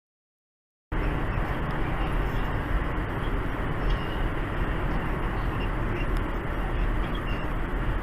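Dead silence for about a second, then steady roadside traffic noise with a deep rumble starts abruptly.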